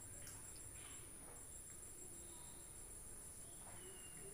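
Near silence: quiet room tone with a faint, steady high-pitched whine.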